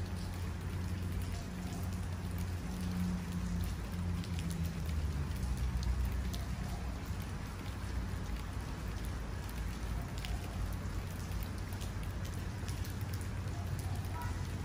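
Steady rain with scattered drop ticks, under a low rumble of distant thunder that builds and then fades over the first half.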